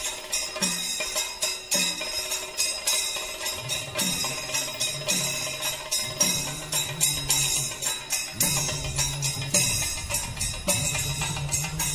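Background music with a steady percussion beat and jingling, joined by a low bass line about four seconds in.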